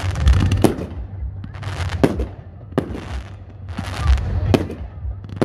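Fireworks display: aerial shells bursting with several sharp bangs, between stretches of crackling from the glittering stars.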